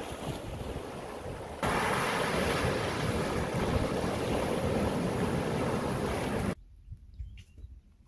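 Sea surf and wind on the microphone, a steady rushing noise that jumps louder about a second and a half in, then cuts off abruptly near the end, leaving near quiet with a few faint clicks.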